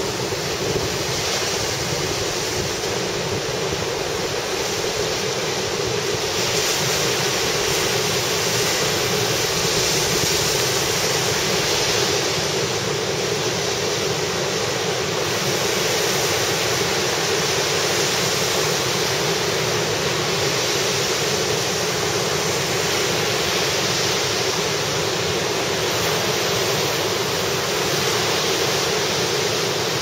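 Heavy surf breaking continuously on a sandy beach, the waves raised high by typhoon swell. A steady wash of noise with no pauses.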